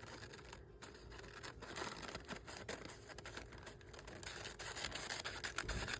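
Paper scraps being handled and sorted: a soft rustling with many small clicks and taps.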